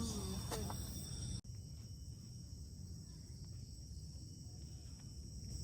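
Steady high-pitched chorus of forest insects over a low rumble. The sound drops out abruptly about a second and a half in, then carries on a little quieter.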